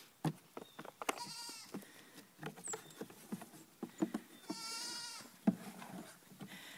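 Three-week-old miniature goat kids bleating twice, each a short high-pitched call, with scattered taps and knocks of small hooves as they jump about.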